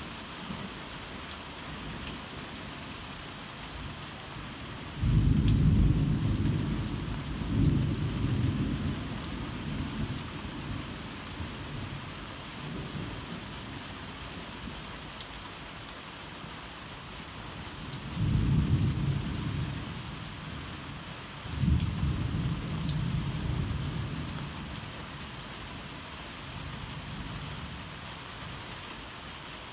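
Heavy rain falling steadily, with thunder. A loud rumble breaks in suddenly about five seconds in, swells again and dies away. A second pair of rolling rumbles comes from about eighteen seconds in and fades out.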